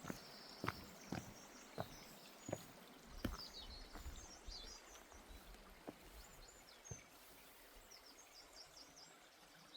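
Faint footsteps on a woodland path, a step about every half second for the first three seconds, then only two more further apart. Small birds chirp faintly in the background.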